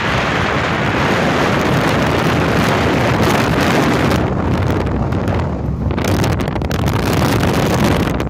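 Wind rushing over the microphone of a camera held at a moving vehicle's side window, mixed with the vehicle's steady road and engine noise. The rushing is loud throughout and thins briefly around the middle.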